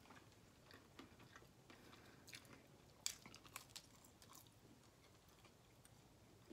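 Faint eating sounds: biting into and chewing a strip of turkey bacon, with a few soft crunchy clicks between about two and four and a half seconds in.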